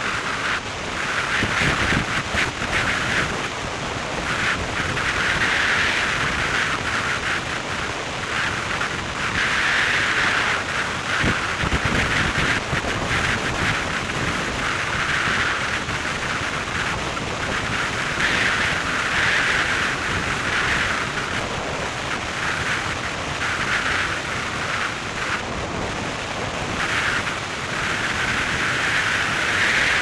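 Steady rush of wind and road noise from a car driving at speed on an open highway, its higher hiss swelling and easing every few seconds.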